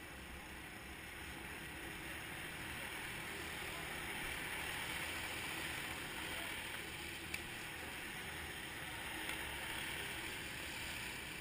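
Steady, muffled drone of go-kart engines running during an endurance race, heard through a helmet-mounted camera, swelling slightly midway, with a sharp click about seven seconds in.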